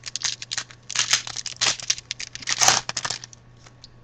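A hockey card pack's wrapper being torn open and crinkled by hand: a run of short ragged rips and crackles, loudest about a second in and again just before the three-second mark.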